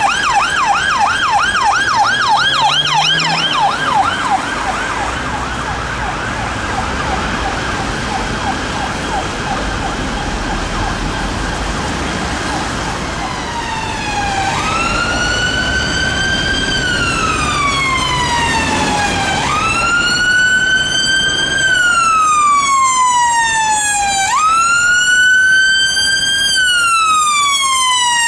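A police car's siren on a fast yelp, about five sweeps a second, fading out over the first ten seconds or so. From about fourteen seconds in, a St John Ambulance Peugeot Boxer's siren runs on a slow wail, each cycle jumping up and then gliding down over about five seconds, growing louder as the ambulance approaches.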